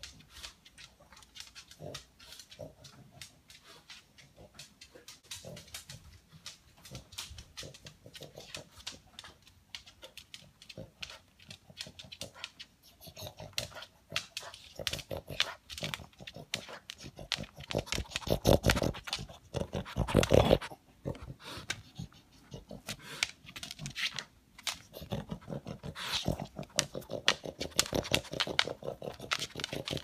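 A pug sniffing and snuffling rapidly along the floor, a noisy run of quick nasal sniffs like a vacuum cleaner, as it hunts for leftover food pellets. The sniffing is faint at first and grows much louder from about halfway as the dog comes close, loudest about two-thirds of the way in and again near the end.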